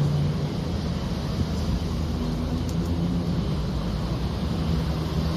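A vehicle running: a steady low rumble with a low hum.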